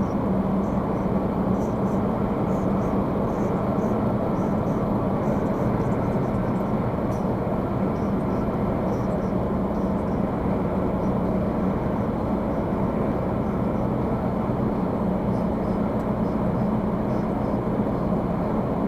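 Steady drone of a diesel delivery truck driving, a constant engine hum over road noise, heard from inside the cab.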